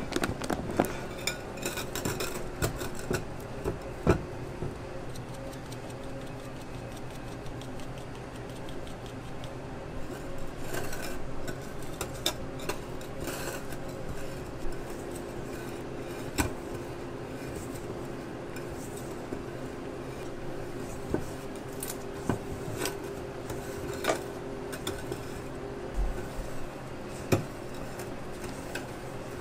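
Spatula scraping through thick batter in a stainless steel mixing bowl, with irregular clinks and knocks as it strikes the bowl's side and rim while the batter is folded.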